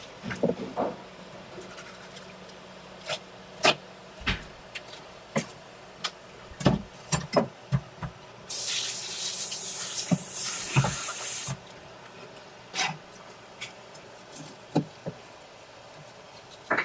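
Wet slaps and knocks of a large whole fish being handled and turned on a cutting tray by rubber-gloved hands, with water running hard from a tap for about three seconds in the middle before it cuts off.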